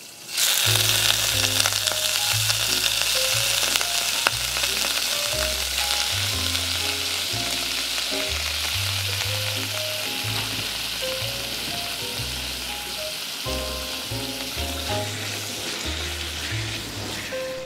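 Raw pork cubes sizzling as they hit hot oil in a nonstick wok, starting about half a second in and slowly easing off as the meat is stirred about with a wooden spatula. Background music with a bass line plays underneath.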